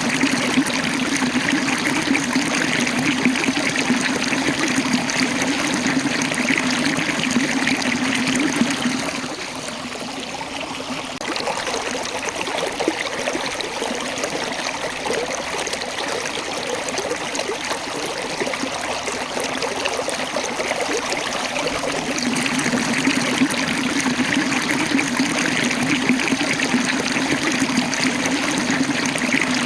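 Waterfall: water running and splashing between rocks, a steady rushing, trickling noise. It drops a little in level for a few seconds about a third of the way in, then comes back as before.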